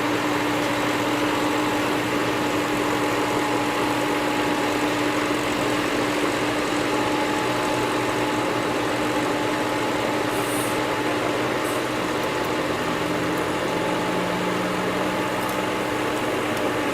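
An engine running steadily at a constant speed, a continuous mechanical hum with a few steady tones in it and no revving.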